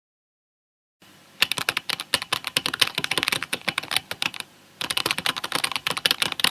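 Fast typing on a computer keyboard: quick clicking keystrokes start about a second in, stop briefly a little past the middle, then carry on.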